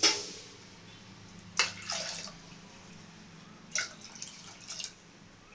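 Water poured from a steel tumbler into a pressure cooker of chana dal, splashing in short pours: one right at the start, one about one and a half seconds in, and one near four seconds in.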